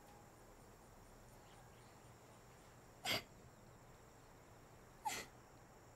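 A girl crying: two short, sharp sobbing gasps about two seconds apart.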